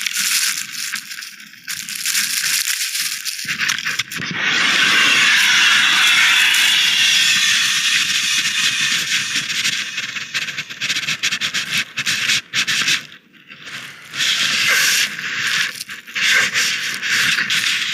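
Skis hissing and scraping over snow in surges during a run, with short gaps between turns.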